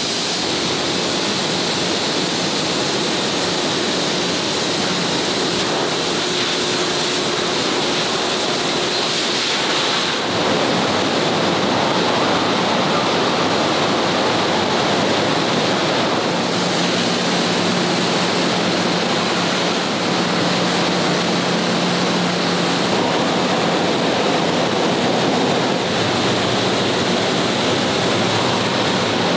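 Steady rushing air noise of factory ventilation and machinery. About ten seconds in it shifts to a fuller rush, and a low steady hum runs through it for several seconds in the middle.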